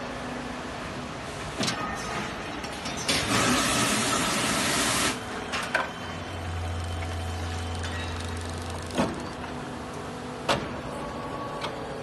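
Leaf-spring furnace and rolling line machinery running. A low hum comes and goes, a loud hiss lasts about two seconds, and several sharp knocks sound at irregular moments.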